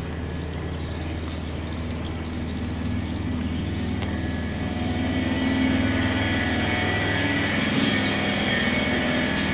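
Steady low machine drone with a constant pitch, getting a little louder about halfway through. High insect chirping comes and goes over it.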